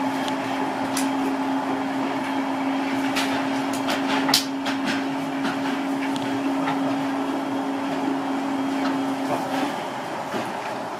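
Inside a Seibu 8500 series 'Leo Liner' rubber-tyred people-mover car in motion: a steady running rumble with a constant low hum that cuts off near the end. A few sharp knocks and rattles from the car, the loudest about four seconds in.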